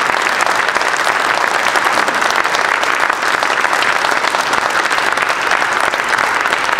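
Audience applauding at the end of a talk: many hands clapping steadily.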